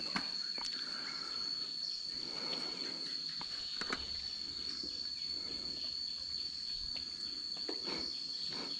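Insects calling in a steady, unwavering high-pitched drone, with a few faint scattered clicks and knocks over it.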